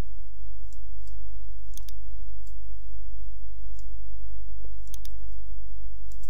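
Computer mouse button clicks, scattered single clicks and a couple of quick pairs, over a steady low hum.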